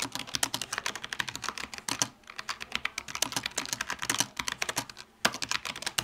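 Logitech G915 TKL low-profile mechanical keyboard with tactile brown switches being typed on quickly: a fast, dense run of key clacks, with short breaks about two and five seconds in.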